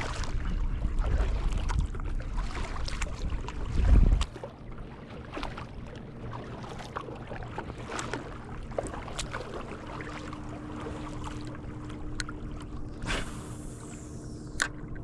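Sounds from a fishing kayak on the water: wind buffeting the microphone for about the first four seconds, then scattered light clicks and knocks over a quiet water-and-wind background, with a faint steady hum from about ten seconds in.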